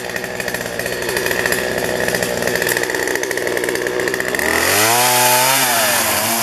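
Chainsaw idling steadily, then revved up about four seconds in and cutting through branches, its pitch wavering as the chain bites into the wood.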